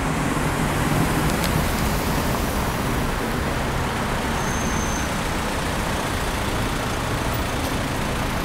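Steady street traffic noise: cars and a city bus running past.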